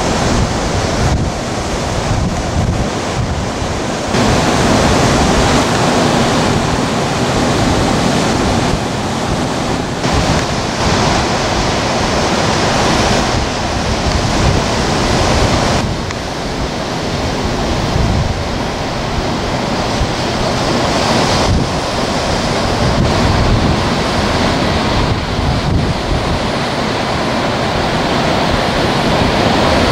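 Heavy storm surf breaking continuously, with strong wind buffeting the microphone; the level swells and eases as waves come through.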